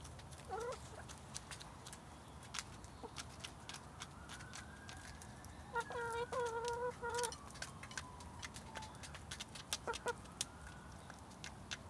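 Domestic hens pecking food off paving stones, with sharp beak taps scattered throughout. Brief clucks come near the start and near the end, and a louder held call of about a second and a half comes in the middle.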